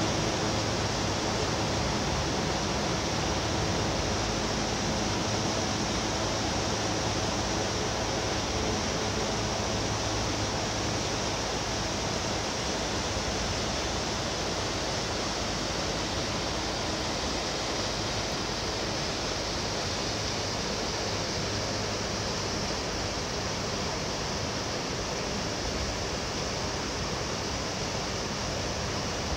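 Steady rushing of water at a river dam, a constant even hiss. During the first ten seconds or so a low mechanical hum sits under it, then fades away.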